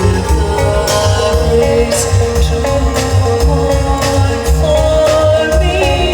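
Recorded song played back through a Halcro DM38 power amplifier and loudspeakers: an instrumental passage with guitar over a steady bass line and a regular beat.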